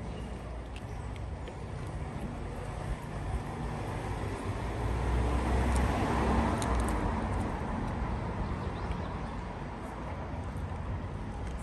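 A car passing by on the road, its noise swelling to a peak about six seconds in and then fading away.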